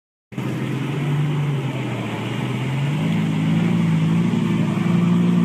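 A car engine running, its note rising and falling slightly as the revs change. It starts abruptly just after the beginning.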